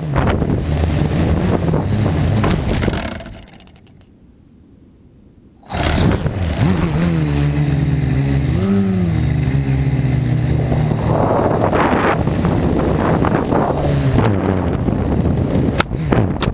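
Quadcopter's electric motors and propellers running with wind buffeting the microphone. The sound drops away for about two seconds, then comes back with a whine that rises and falls in pitch as the throttle changes.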